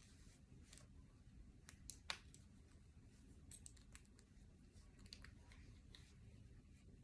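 Faint, scattered metallic clicks and scratches of a bobby pin picking the lock of Smith & Wesson handcuffs, with one sharper click about two seconds in.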